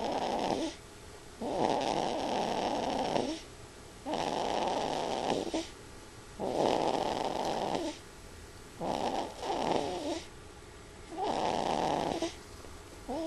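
Snoring: a sleeper's loud, rhythmic snores, each lasting about a second, one roughly every two and a half seconds.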